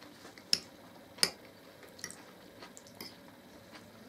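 A metal fork clicking sharply twice against a glass baking dish as salad is scooped out, followed by a few fainter clicks.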